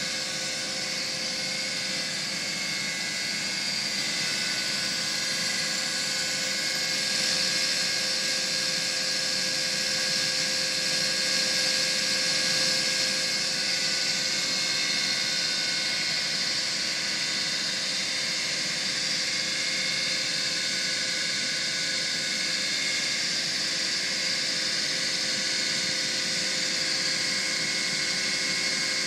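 Bobcat SG60 stump grinder's hydraulically driven cutting wheel spinning freely, with the loader's engine running, making a steady mechanical whine.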